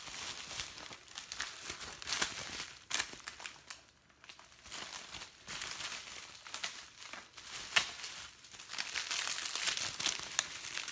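Plastic packaging crinkling and rustling as a wrapped item is handled and unwrapped, in irregular bursts with a short lull about four seconds in.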